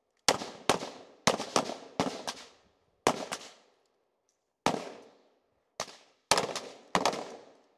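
Rifle fire from several AR-style carbines on a firing line: about fourteen sharp shots at uneven spacing, some close together, each trailing off in a short echo. The shooters are firing three-round groups to check point of impact against point of aim.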